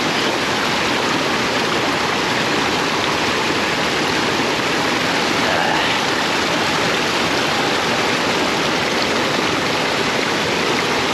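Waterfall and mountain stream rushing over boulders: a steady, dense hiss of running water that does not change.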